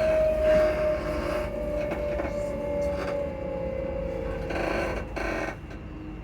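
Class 334 electric multiple unit's traction motor humming, a steady whine sliding slowly down in pitch as the train slows, over running rumble from the rails. Bursts of rail noise come in about four and a half and five seconds in.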